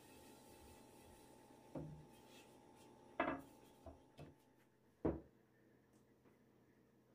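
A few light knocks and clunks of kitchen utensils and containers being handled and set down on a work surface, the loudest about three and five seconds in, over a faint steady hum that stops shortly after five seconds.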